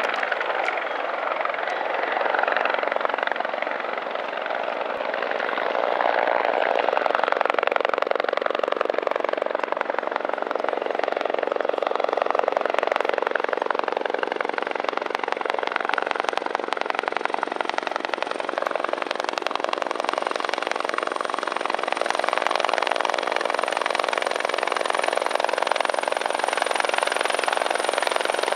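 Turbine helicopter flying in and coming to a low hover: steady rapid rotor chop over engine noise, with a thin high whine that grows louder through the second half as it draws near.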